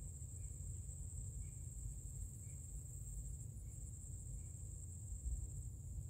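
Insects trilling steadily at a high pitch over a low rumble, with faint short chirps about once a second.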